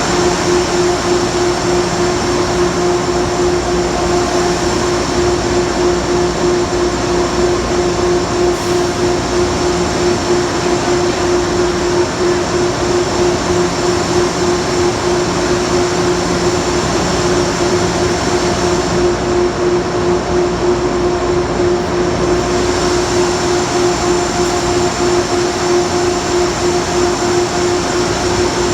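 Metro-North electric commuter train equipment running at a steady pitch. It makes a loud, constant drone with a steady low hum and a faint high whine.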